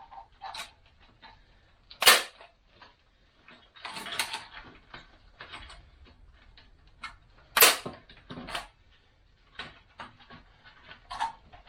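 Staple gun firing two sharp snaps about five and a half seconds apart, tacking chicken wire onto a wooden frame, with lighter clicks and rattling of the wire being handled in between.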